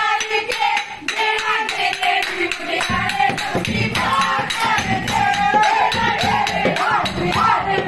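Lively dance music with singing over a quick, even percussion beat; a deeper drum beat comes in about three seconds in.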